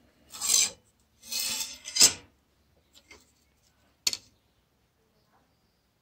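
Steel bayonet scraping and sliding on a steel workbench top in two short bursts, then a single sharp metallic clink about four seconds in.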